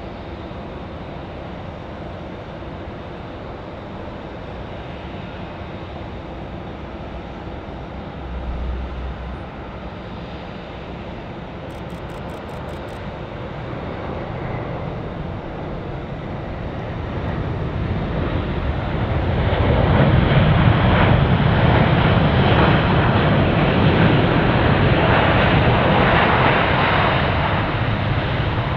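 Asiana Airlines Airbus A350-900's Rolls-Royce Trent XWB engines during landing: a steady jet noise, with a brief low thump about eight seconds in. The engine noise then swells to much louder about two-thirds of the way through as the airliner rolls out along the runway, easing slightly near the end.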